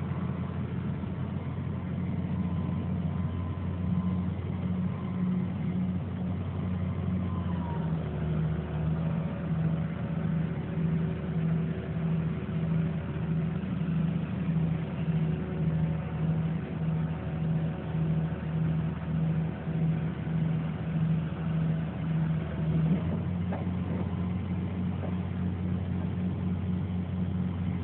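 Diesel engine of a Hitachi EX270LC excavator carrying a kelly-bar drill, running steadily with a faint whine. About eight seconds in the note drops and pulses about one and a half times a second, with added whining tones, as the hydraulics lift the boom and drill mast; it steadies again a few seconds before the end.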